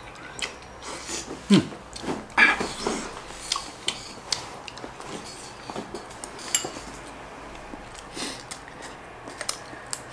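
Chopsticks and a spoon clinking against glass bowls and a ceramic clay pot while eating: scattered short clicks, a few of them louder.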